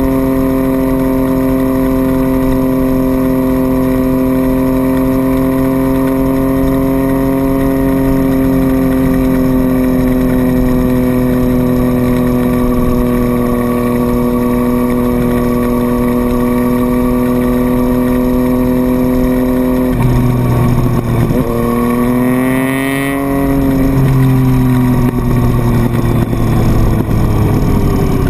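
Triumph Street Triple's three-cylinder engine running at steady revs while cruising. About three-quarters of the way through, the pitch wavers, dips and climbs again as the throttle changes, then the revs fall near the end.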